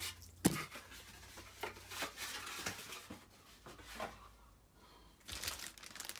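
A few light taps and knocks of things being handled on a workbench, then, near the end, the crinkling of a clear plastic bag as the bagged RC transmitter is picked up.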